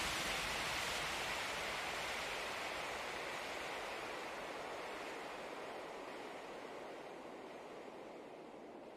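Steady road and wind noise of a car driving on a paved road, a smooth hiss that slowly fades away.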